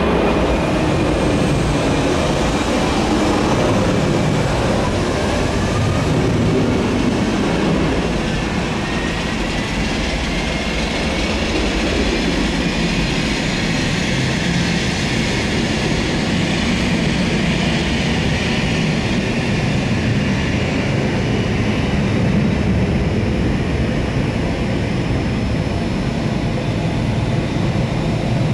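Steady jet-engine roar from the Airbus A320 and its pushback tug during pushback, with a thin whine rising in pitch over the first few seconds.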